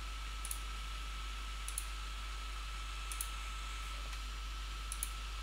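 Computer mouse buttons clicking in quick pairs, about four times, over a steady background hiss and faint hum.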